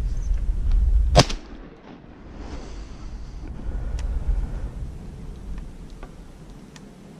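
A single shotgun shot about a second in. Before it there is a heavy low rumble that drops away right after the shot.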